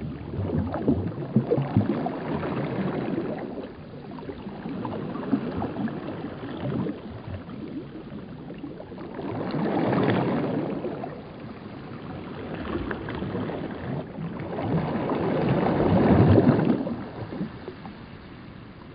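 Water lapping and sloshing in slow swells, loudest about ten seconds in and again around sixteen seconds, then dying down near the end.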